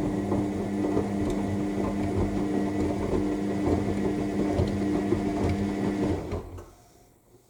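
AEG 7000 Series L7FE7461BI front-loading washing machine tumbling its drum during the main wash: a steady motor hum with soft knocks of wet laundry turning. The drum stops about six seconds in and the sound falls to near silence, the usual pause between tumbles.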